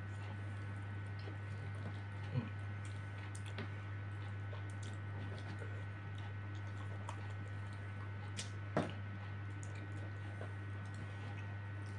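Eating by hand close to a clip-on microphone: fingers pulling duck meat off the bone and chewing, with soft wet squishes and scattered small clicks. Two sharper clicks come about two and a half and nine seconds in. A steady low hum sits under it all.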